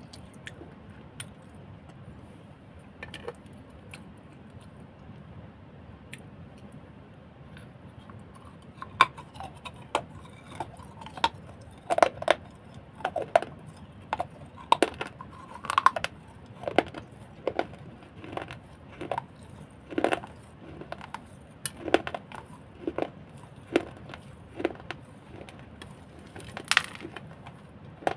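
Close-miked eating of crunchy food: from about nine seconds in, sharp individual crunches come roughly once a second over a faint steady hiss.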